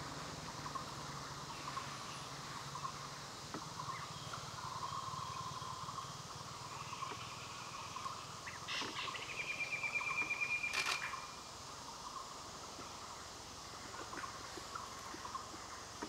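Forest background sound, a steady chorus from unseen wildlife, with a fast high trill lasting about a second and a half a little past the middle, ending in a sharp click.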